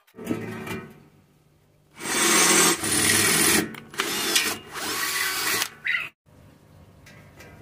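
Electric hand drill boring holes through galvanized steel sheet for rivets. It runs in several bursts of a second or so with short breaks, the motor pitch sagging and rising as the bit cuts, and stops about six seconds in.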